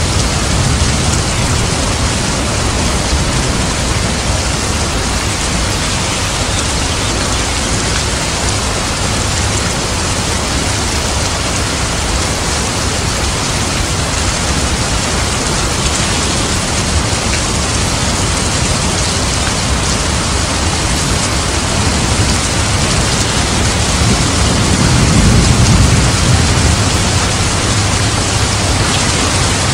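Heavy rain falling steadily, an even hiss. A low rumble swells briefly near the end.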